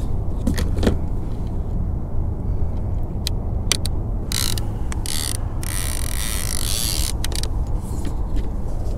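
Baitcasting fishing reel handled in its rod holder while a fish runs with the bait: sharp clicks, then several seconds of ratchety buzzing about halfway through, over a steady low wind rumble.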